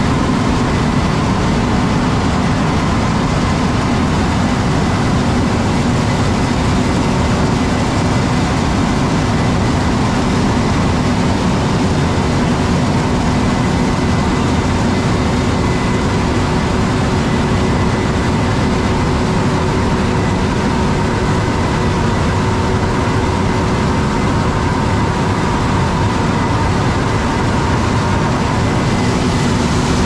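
John Deere 9570 STS combine harvesting corn, engine and threshing machinery running steadily under load: a loud, even drone with a few steady tones over a low rumble.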